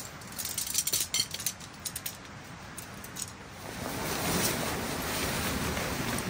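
Light clicks and rattles of tent pole sections being fitted together. From about four seconds in, a steady rustle of tent fabric being unfolded and spread out.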